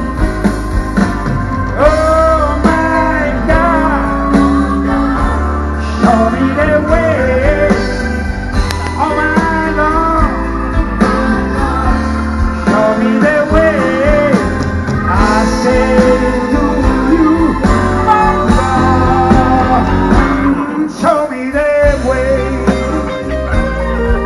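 Live band playing a blues number through a big outdoor PA, heard from within the crowd: a heavy steady bass and drum groove with a bending lead melody line on top. The bass and drums drop out briefly near the end.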